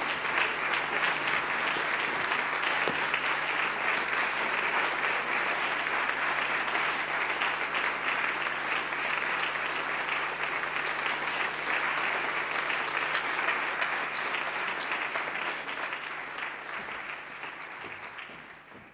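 Theatre audience applauding, a dense steady clapping that fades out near the end.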